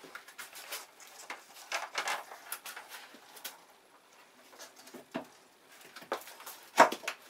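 Ceramic hob's metal casing and spring brackets scraping and clicking as it is slid into a laminate worktop cutout and pressed down, with a sharper knock near the end as it seats.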